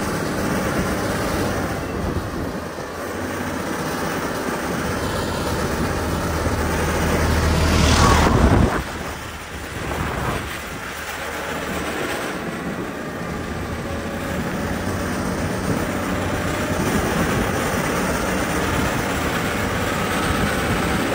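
Heavy diesel construction machinery running with a steady rumble. It builds to its loudest about eight seconds in, then drops off abruptly.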